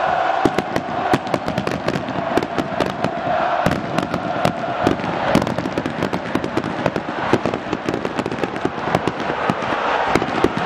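Dense, irregular crackle and bangs of firecrackers and fireworks going off many times a second over a large stadium crowd singing.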